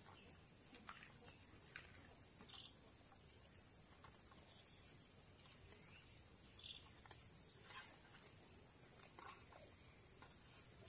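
Crickets trilling in a steady high drone, with a few faint short chirps now and then.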